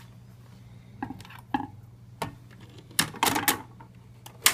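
Voice of Music model 307 record changer being loaded and cycled: a series of sharp mechanical clicks and clunks as a record goes onto the platter, the loudest in a quick cluster about three seconds in and twice near the end, over a steady low hum.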